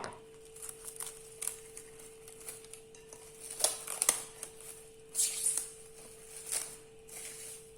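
Plastic cling wrap being stretched and pressed over a bowl: scattered soft crinkles and rustles in short bursts, with a few light clicks.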